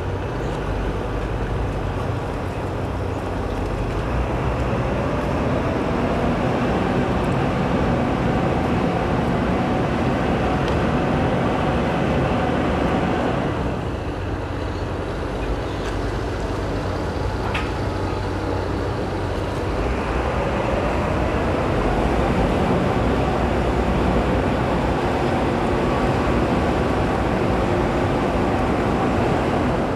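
Riverboat's diesel engine running during a docking manoeuvre. It picks up speed about four seconds in, eases off for a spell in the middle, and picks up again about twenty seconds in.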